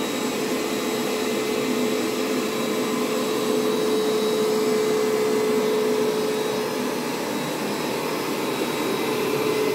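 ProHeat Pet Turbo upright carpet cleaner running steadily: its motor gives a constant hum over a rush of suction noise as it draws water back out of the carpet.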